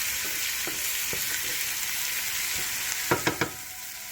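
Diced jackfruit seeds frying with onion and pepper in oil in a non-stick pot, a steady sizzle. About three seconds in, three quick knocks of a utensil against the pot, after which the sizzle is a little quieter.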